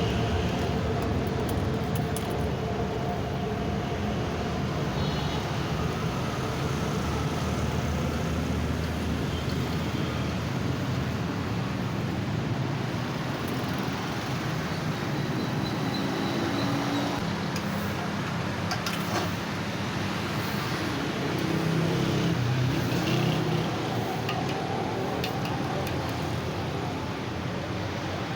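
Steady road traffic noise of passing vehicles, with a few brief engine or horn tones in the middle.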